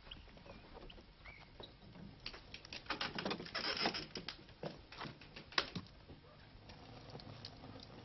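Scattered scuffs, light knocks and rustling of someone moving about and handling things, thickest a couple of seconds in, with a sharp knock near the middle. Two faint short bird chirps in the first second or so.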